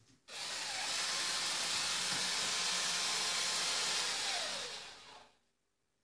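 Electric drill running steadily at full speed, starting suddenly and then winding down near the end with a falling whine.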